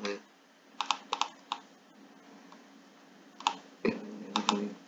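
Scattered clicks from a computer keyboard and mouse, about eight in all, in two small groups, with a low steady hum coming in near the end.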